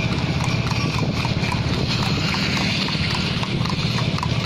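Horse's hooves clip-clopping at a steady trot on an asphalt road as it pulls a two-wheeled cart, over a steady low drone.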